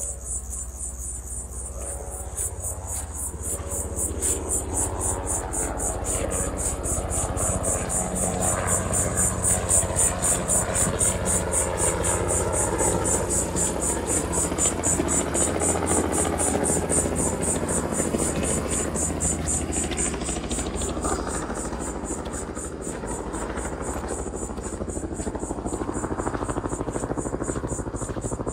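Insects in the scrub, crickets or katydids, keep up a high-pitched chorus that pulses about three times a second. Under it a lower, unsteady rumbling noise swells through the middle.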